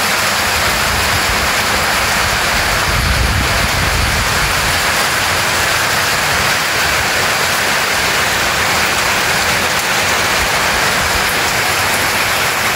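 Heavy rain pouring down, a steady dense hiss, with a brief low rumble about three seconds in.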